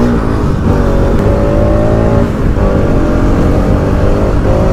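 Motorcycle engine running under way, its pitch rising and easing with the throttle, with a brief dip a little past the middle.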